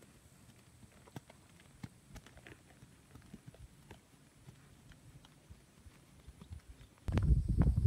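Faint, scattered hoofbeats of a horse moving on a sand arena. A sudden loud, low rumbling noise starts near the end.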